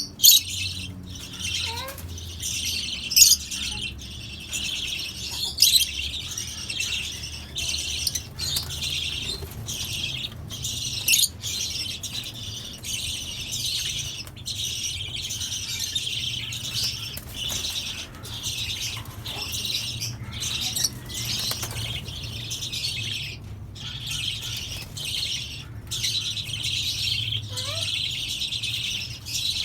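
Mixed flock of Fischer's lovebirds, cockatiels and budgerigars chattering continuously, with a few loud, sharp calls standing out in the first dozen seconds.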